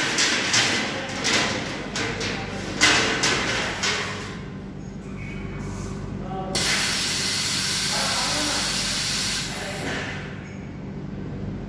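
Industrial degreasing machine: wire racks clattering as they are slid in over the first few seconds, then a loud steady hiss for about three seconds while the machine's door comes down, over a constant motor hum.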